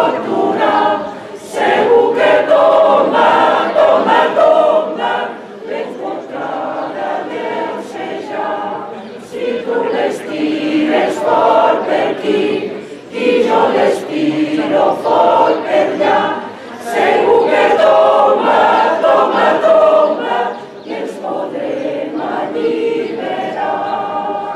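Mixed choir of men's and women's voices singing a Catalan Easter caramelles song in Catalan, in phrases that swell loud and fall back softer.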